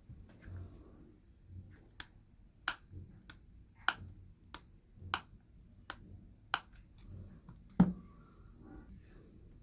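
Series of sharp clicks and taps at irregular intervals, roughly one a second, the loudest one near the end, over the steady high chirring of crickets.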